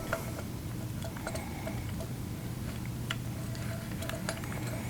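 Faint, scattered clicks and light metallic clinks as an airbrush air-pressure regulator is handled and test-fitted onto the compressor's fitting.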